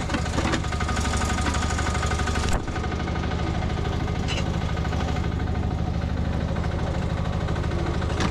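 Engine of a 1-ton Nuoman E10 mini excavator running steadily under work, with knocking and clatter over it. About two and a half seconds in the sound changes abruptly and the higher clatter drops away, leaving the engine's steady drone.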